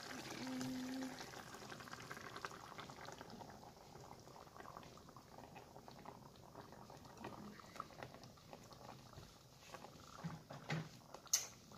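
Tomato sauce with fish bubbling faintly at a simmer in a pan, a steady fine crackle, with beaten egg poured in at the start. A couple of sharp clicks near the end.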